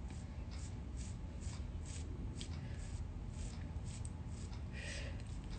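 A small edge brush scratching through hair along the hairline in short, soft strokes, about two a second and unevenly spaced.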